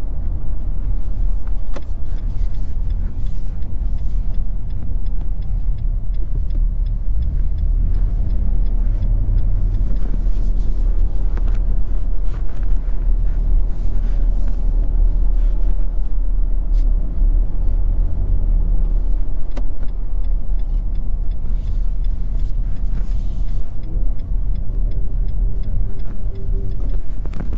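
Cabin noise inside a 2022 Nissan Frontier Pro-4X pickup driving at city speeds: a steady low rumble of its 3.8-litre V6 and road noise. The engine note swells a couple of times as it pulls away.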